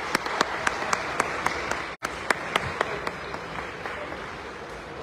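A small group clapping in scattered, distinct claps that thin out after about three seconds.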